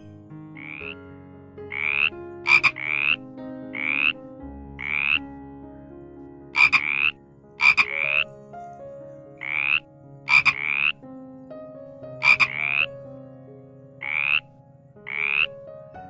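Frogs calling: short rising calls repeated about once a second, mixed with sharper, higher clicking calls that often come in pairs.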